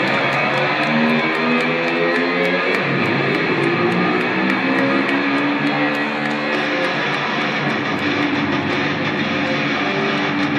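Loud guitar-driven music with strummed electric guitar, played over an arena sound system and changing notes steadily throughout.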